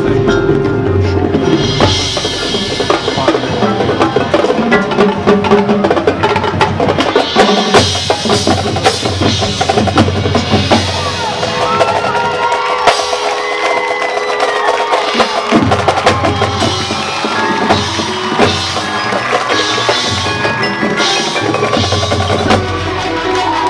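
High school marching band playing a percussion-heavy passage: snare and bass drums with front-ensemble mallet percussion ringing over them. The deep drums drop out for a few seconds midway, then come back in.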